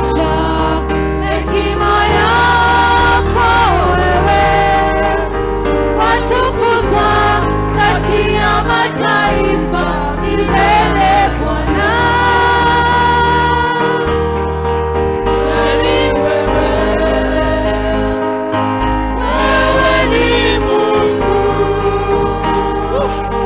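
Live gospel worship music: a choir of singers carrying the melody over a band with sustained bass notes that change every couple of seconds.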